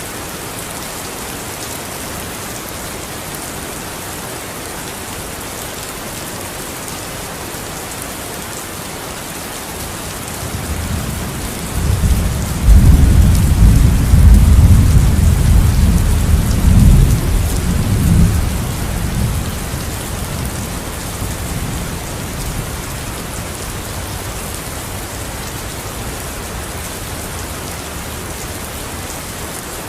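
Steady heavy rain with a long roll of thunder that builds about ten seconds in, rumbles loudest for several seconds, then fades back under the rain.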